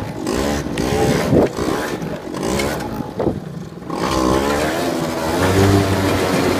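Small quad (ATV) engine running, its pitch rising and falling as the throttle is worked, settling into a steadier run after about four seconds.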